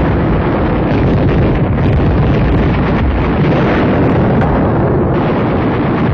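Loud, steady rumble of battle noise from explosions, with no single blast standing out.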